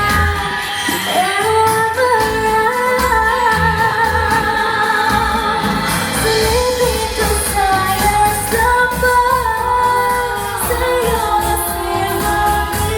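Show music: a voice singing a long, winding melody over a steady beat.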